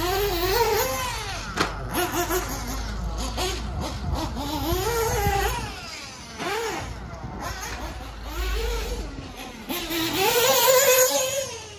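Small high-revving engine of a Hot Bodies D819RS 1/8-scale nitro buggy, its pitch rising and falling again and again as the throttle is opened and closed; loudest near the end.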